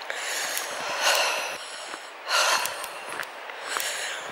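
A walker breathing hard, three loud breaths about a second or so apart, with faint scuffs of footsteps on a stony path.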